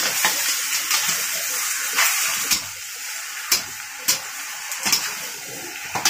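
Seafood sizzling and bubbling in a steel wok, louder in the first half. A metal spatula clinks and scrapes sharply against the wok several times as the food is stirred.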